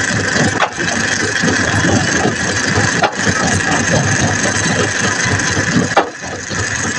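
An engine running steadily, with three sharp clicks: one about half a second in, one at about three seconds and one near the end.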